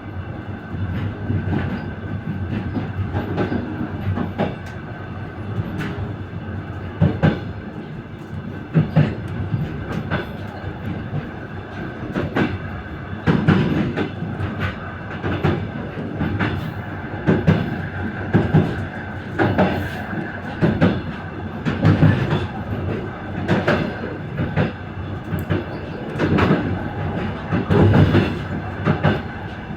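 Passenger train wheels clacking over rail joints, heard from a carriage vestibule: a steady running rumble with sharp knocks in quick groups every second or two, the knocks growing louder after about halfway.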